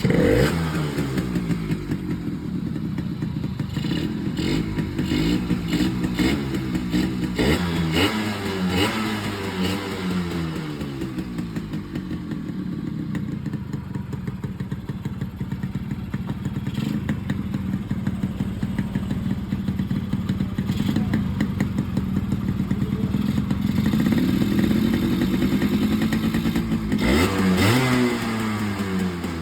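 1987 Yamaha RX100's two-stroke single-cylinder engine running just after its first start from a long-neglected, rusted state. Its revs fall away at first, it is blipped a few times, and it settles to idle. Near the end it is revved sharply once and drops back to idle.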